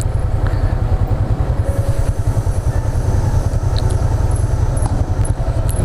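Motorcycle engine running steadily while riding along the road, with strong wind buffeting on the microphone.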